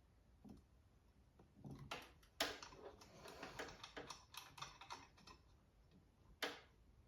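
Light clicking and clattering of a chainsaw turbo's charge pipe being worked into place by hand, with a sharp click about two and a half seconds in and another near the end.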